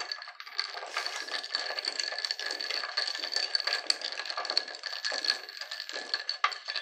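A metal spoon stirring ice cubes in a tall glass of kiwi ade. The ice and spoon clink and rattle against the glass in a rapid, continuous jumble, with the glass ringing faintly.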